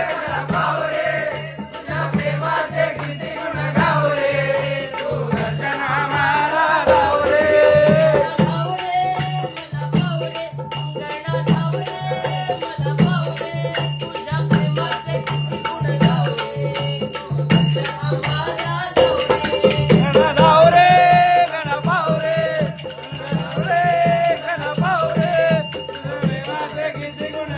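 A Marathi devotional bhajan being sung to dense, rapid rattling percussion over a steady low drone.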